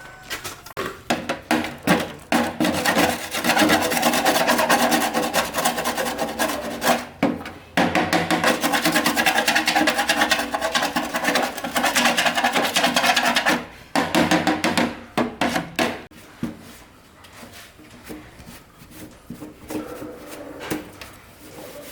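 Fast back-and-forth rasping strokes on a hard surface, like sanding or scrubbing, in two long loud runs with a short break about seven seconds in. The strokes become lighter and more scattered from about fourteen seconds.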